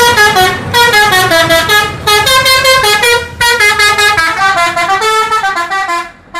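A tour bus's multi-tone musical air horn (a 'telolet' horn) playing a fast tune of stepping notes, in several loud phrases with brief breaks, over a low bus-engine rumble that fades after about four seconds.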